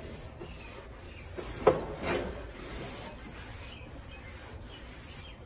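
A paper towel being rubbed over the stainless steel cooking grates of a Weber Genesis II gas grill, wiping up grill-stone grit, with a sharp clack a little under two seconds in.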